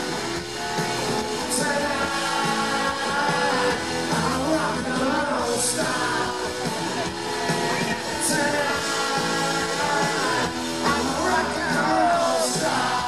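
Live rock band with a male lead singer singing, his voice carried by the band's full sound, with a cymbal crash every few seconds.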